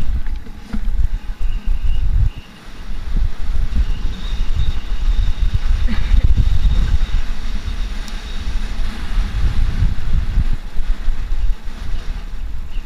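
Enduro motorcycle engine running as the bike rides a dirt trail, the throttle rising and falling, with a brief dip about two seconds in. Uneven rumble on the on-board microphone.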